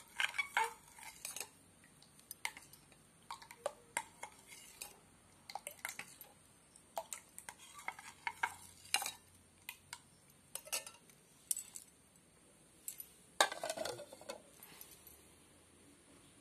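A steel spoon stirring a thin rice-flour batter in a white bowl, clinking and scraping against the bowl's sides in irregular knocks, with a louder cluster of clinks about 13 seconds in.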